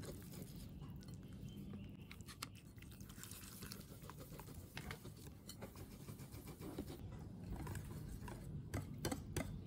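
Wire whisk beating a wet flour-and-coconut-milk batter in a glass bowl, with faint, irregular clicks and scraping of the wires against the bowl as the lumps are beaten out.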